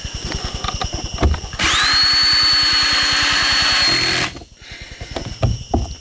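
Cordless drill spins up with a rising whine, runs steadily for about three seconds, then stops, driving a screw that fixes a plastic pegboard tile to the wall.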